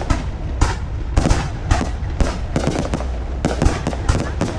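Fireworks display: many bangs in quick, irregular succession over a continuous low rumble.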